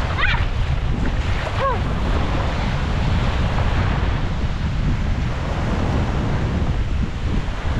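Wind buffeting the microphone over small waves washing onto a sandy beach. About a second and a half in, a short high call rises and falls once.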